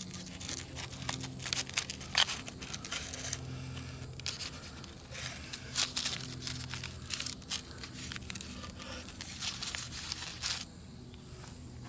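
A knife sawing through a toasted sandwich on a paper plate: a run of short crunches and scrapes that stops shortly before the end.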